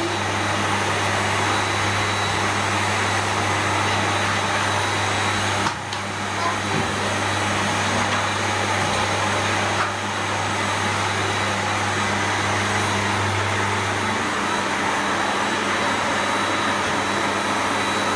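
Electric vacuum cleaner running steadily with a loud rush of air. It dips briefly about six seconds in, and its low hum drops away about fourteen seconds in while the rushing goes on.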